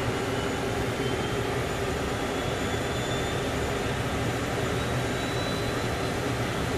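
ATR 72-500 cockpit filled with the steady rumble and whine of its Pratt & Whitney PW127 turboprop as engine number 1 accelerates on its starter just after ignition. A faint high whine rises slowly in pitch as the engine spools up.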